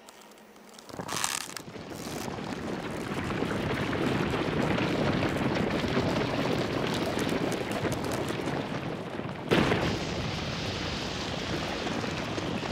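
Soundtrack sound effect of a loud rushing, wind-like roar: a sudden whoosh about a second in, then a dense rumble that builds and holds, with one sharp hit about nine and a half seconds in.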